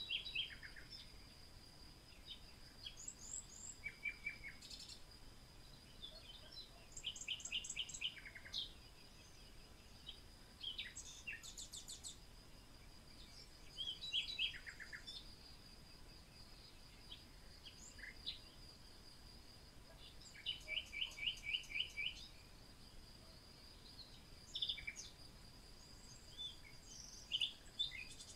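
Birds singing: scattered bursts of quick repeated chirps and short trills from several birds, over a steady high insect drone.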